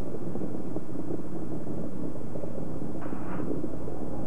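Steady low rumble of a distant space shuttle launch heard from the ground, with a brief higher-pitched sound about three seconds in.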